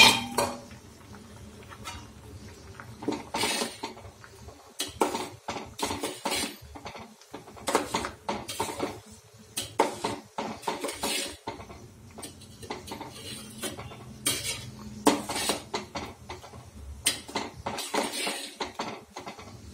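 Metal ladle stirring a stainless steel pot of boiling dal curry, with irregular clinks and scrapes against the pot's sides and rim. A single loud metal clank comes right at the start.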